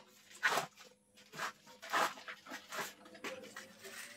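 Paper wrapping rustling and crinkling in a handful of short bursts as it is unfolded by hand.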